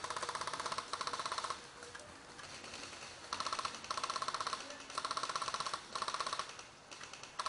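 Airsoft rifle firing on full auto in short bursts: about six bursts of rapid, evenly spaced shots with brief pauses between them.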